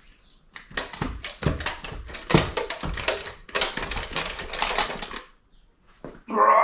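Rapid metallic clattering and knocking as a VW T5 1.9 TDI cylinder head is rocked loose and lifted off the engine block, with a short louder sound near the end.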